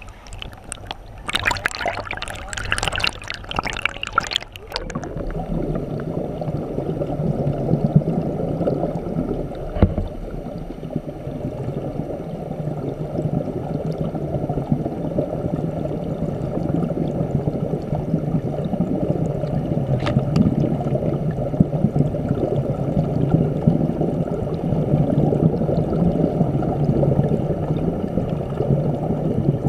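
Stream water flowing over rocks, heard from underwater: a steady, muffled gurgling rush. For the first few seconds there is brighter splashing, and about five seconds in it turns muffled and even.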